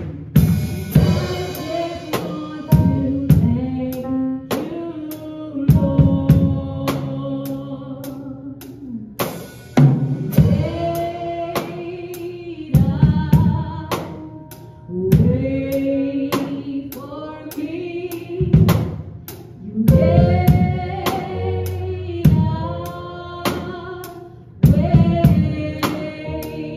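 Live gospel performance: electronic keyboard chords and a drum kit keeping a steady cymbal beat, with a singer's voice over them.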